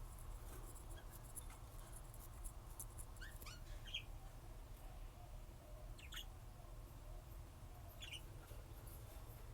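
Pet lovebirds giving short, squeaky chirps, about three calls a couple of seconds apart, over a steady low hum.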